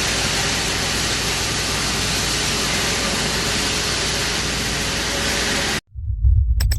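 HGM100L-II grinding mill running while it processes pyrophyllite: a steady, loud, hissing noise with a low hum underneath. It cuts off abruptly near the end and is replaced by a low rumble with sharp clicks.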